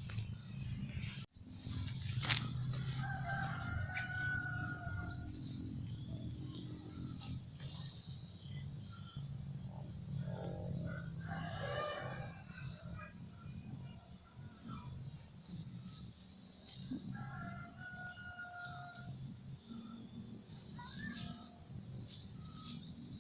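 Steady high-pitched drone of insects such as crickets, with a couple of held calls standing out above it twice.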